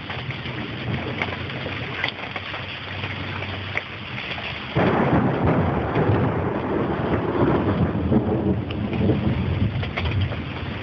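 Steady rain with scattered drop ticks; about halfway through, thunder breaks in suddenly and rumbles loudly for about five seconds before easing near the end.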